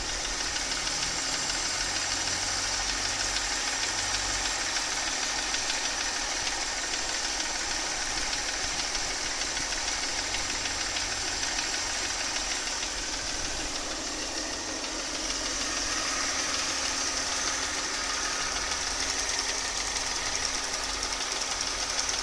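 Mercedes-Benz M272 3.5-litre V6 engine (272.967) running warm with a rapid, regular knock over the engine noise, which the owner notes is loudest on the left side. It gets a little louder about two-thirds of the way through.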